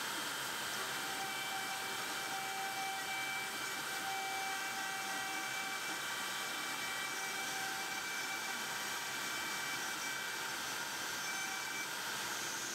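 CNC router spindle (a Makita router on an X-Carve) running steadily as a small end mill cuts into a brass block: an even hiss with a few faint steady whining tones.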